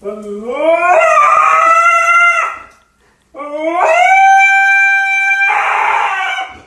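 A husky-type dog howling: two long howls, each sliding up in pitch and then held steady. The second howl turns hoarse and breathy near the end.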